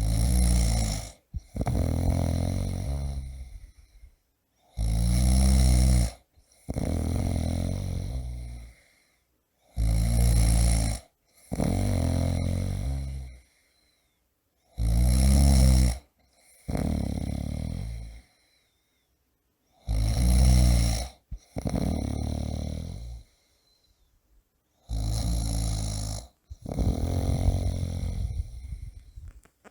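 A man snoring loudly and rhythmically. About every five seconds there is a loud snore of just over a second, followed straight away by a longer, fading one, then a short silence.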